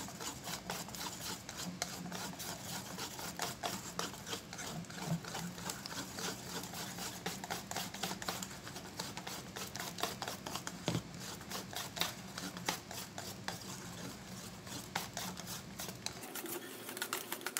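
Wire whisk beating runny cake batter by hand in a stainless steel bowl: a fast, steady run of wire clicks and scrapes against the metal.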